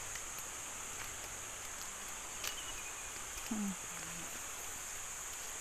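Steady high-pitched insect drone over the even rush of a river, with a few faint ticks. A short, low voice-like sound comes about three and a half seconds in.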